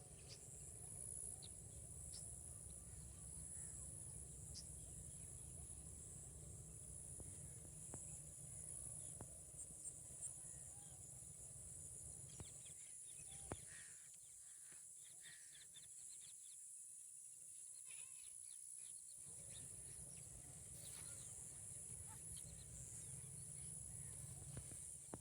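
Faint rural outdoor ambience: a steady high-pitched insect drone, with low wind rumble that drops away for a few seconds in the middle, and a few faint chirps and ticks.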